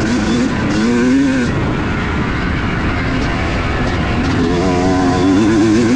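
2018 Yamaha YZ250's single-cylinder two-stroke engine running hard under a rider, over a constant rush of noise. The engine note rises and wavers briefly about a second in, and again over the last second and a half.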